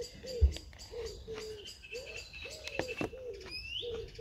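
Pigeons cooing, a run of short repeated low notes, while small birds chirp high and thin in the background. A single low thump about half a second in is the loudest sound.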